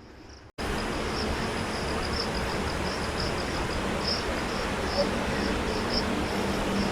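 Insects chirping in quick, uneven pulses over a steady hiss of outdoor background noise, starting abruptly about half a second in.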